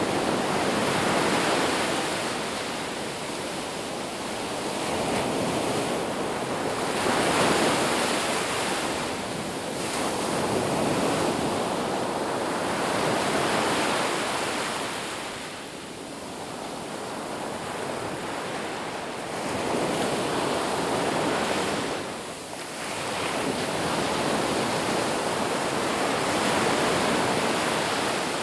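Ocean waves breaking on a beach, a steady rush of surf that swells and ebbs every few seconds.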